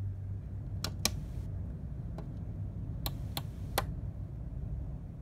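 HO-scale brass D&RGW 4-6-6-4 Challenger model running slowly, with a steady low drone from its motor and gear drive; the spur gears in the first reduction stage give it a little gear noise. Sharp metallic clicks from the wheels on the track come twice about a second in and three more times between three and four seconds in.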